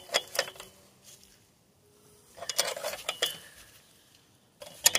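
Steel wrenches clinking and tapping against a bolt and a steel light-mounting bracket as the bolt is tightened, in three short bursts of clicks: at the start, around the middle and just before the end.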